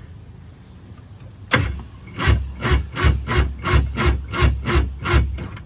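Electric starter cranking a 1995 Sea-Doo SPX's two-stroke engine, starting with a sharp clunk about a second and a half in and then turning it over in an even chuff about three times a second without it catching.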